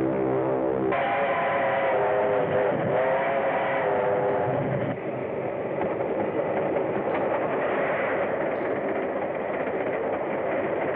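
Steam train running, with a chord of held, slightly wavering tones over the first three seconds above a steady rushing noise.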